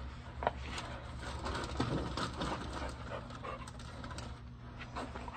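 A young dog panting, with soft footsteps and scattered light clicks as dog and handler walk across the floor.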